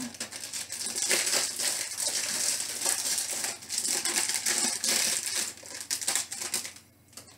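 Stiff plastic blister packaging being pried and torn open by hand: a dense run of crinkling and crackling that stops near the end.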